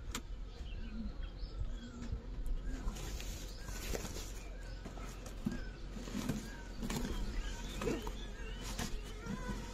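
Handling noises as a wooden beehive box is closed: light knocks and clicks of wood, then the rustle of a woven plastic sack spread over the box as a cover. Faint bird chirps sound in the background.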